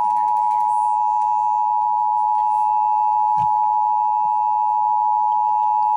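Emergency Alert System two-tone attention signal received over the radio: one steady, unbroken two-note tone, the alert tone that opens a required monthly test.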